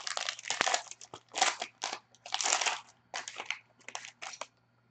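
Foil wrapper of a hockey card pack crinkling in a series of short bursts as it is opened by hand. The bursts stop about four and a half seconds in.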